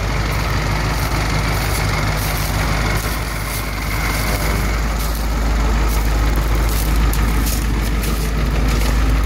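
Diesel V8 of a 1994 Ford E350 box truck idling steadily, with light crackles of footsteps on dry leaf litter.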